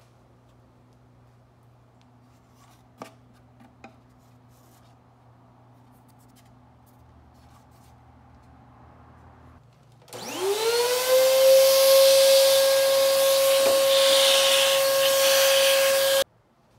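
Vacuum cleaner switching on about ten seconds in, its motor whine rising quickly and settling to a steady pitch over a loud rush of air as it cleans out a car's plastic air filter box, then cutting off suddenly about six seconds later. Before it, two short clicks.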